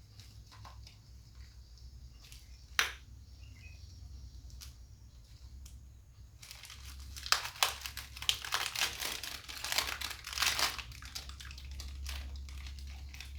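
Hands handling brush cutter engine parts during reassembly: scattered small clicks, one sharp click about three seconds in, then a busy spell of clicking and crinkling from about seven to eleven seconds.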